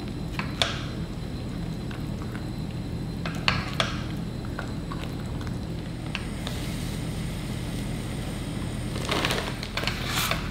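Silicone spatulas stirring and scraping thick cheese sauce in a stainless-steel frying pan, with a few sharp taps and a longer stretch of scraping near the end. A steady low hum runs underneath.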